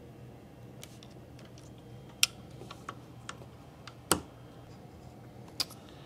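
Scattered small sharp clicks and taps of a RAM module and the motherboard's plastic memory slot as the module is handled and pushed home, the sharpest click a little past four seconds in, over a faint steady low hum.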